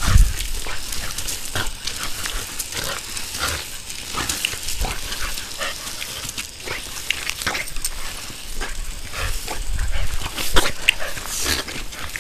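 A Boston Terrier making many short, irregular sounds as it plays at the spray of a garden hose nozzle, over the steady hiss of the water.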